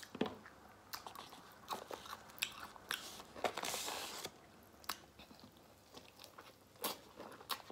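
Close-miked eating sounds: scattered wet clicks and smacks of biting and chewing an Italian beef sandwich dipped in cheese sauce, with a longer soft squelching noise about three and a half seconds in.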